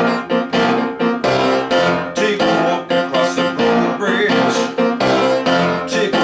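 Music led by a piano or electric keyboard playing chords in a steady, even rhythm.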